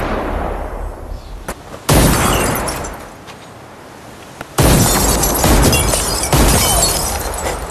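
Loud pistol shots fired at bottles for target practice: three sharp reports, about two seconds apart, each ringing out in a long echoing decay.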